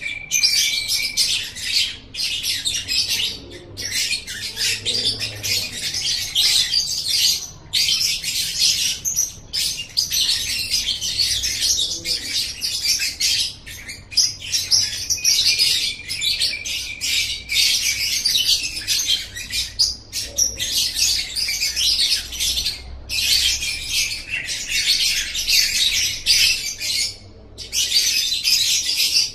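Lovebird ngekek: long bouts of rapid, high-pitched chattering, each lasting several seconds and broken by short pauses.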